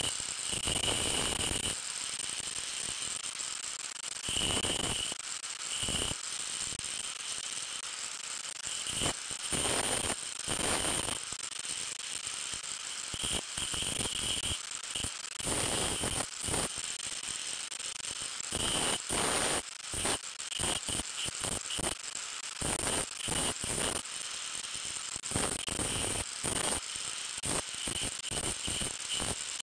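Angle grinder with an abrasive disc running while a small metal piece is held against the edge of the spinning disc, giving irregular scraping and rattling contacts over the motor's steady high whine.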